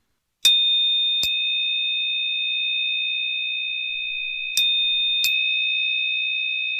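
A steady, high electronic beep tone, two pitches sounding together, that comes in sharply about half a second in and holds. Four sharp clicks break it where it is cut and restarted, twice early and twice near the end, and after the third click the tone is louder.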